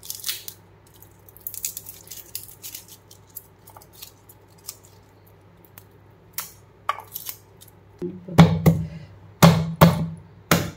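Garlic cloves being peeled by hand over a wooden chopping board, with small crackles and clicks of the dry papery skins. About eight seconds in comes a run of loud thumps on the wooden board as the garlic is crushed.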